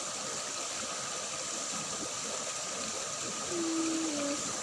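Water running steadily in a small ditch, a continuous even rush.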